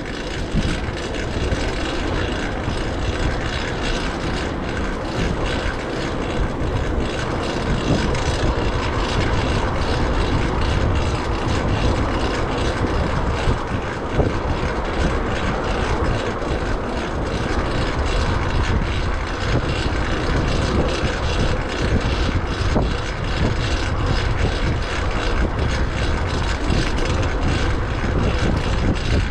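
Riding noise from a fixed-gear bicycle: wind rushing over the microphone with the steady whir of a loud chain drivetrain running on a new rear cog.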